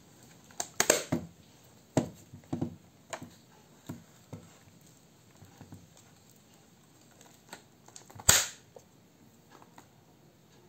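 An Ica Ideal 246 folding plate camera being opened by hand: its front bed is swung down and the lens standard is drawn out on its rails, giving a string of irregular metal clicks and clacks. The two sharpest come about a second in and near the end.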